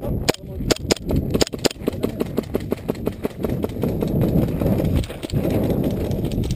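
Hurried footsteps on gravel from several people walking and running, with a few sharp clicks in the first two seconds, then a steady run of steps at about four a second.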